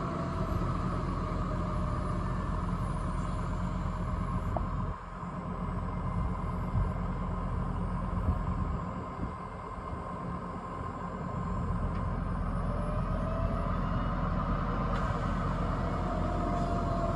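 Tractor diesel engine running steadily under load, with a steady whine over the engine drone.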